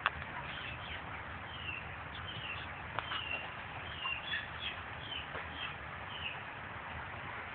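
Poultry chirping: many short, high calls overlapping, over a steady low hum, with a sharp click right at the start and another about three seconds in.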